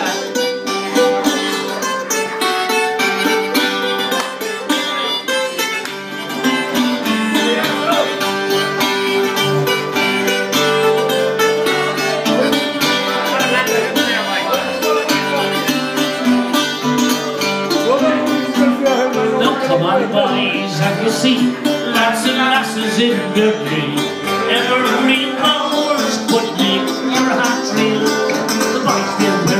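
Live acoustic folk band playing an instrumental introduction: acoustic guitar strumming with a plucked banjo, before any singing comes in.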